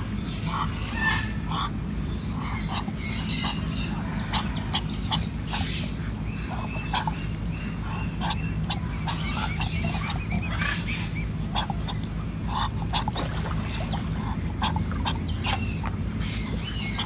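Birds giving many short, scattered calls over a steady low hum.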